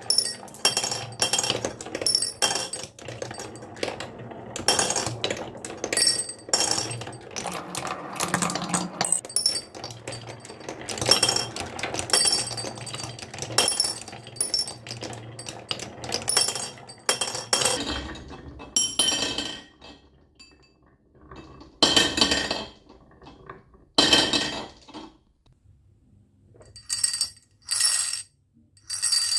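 Marbles clicking and clinking as they roll and drop through a toy marble run, with rapid overlapping clatter and bright ringing tones that thin out after about eighteen seconds into a few separate bursts with quiet gaps.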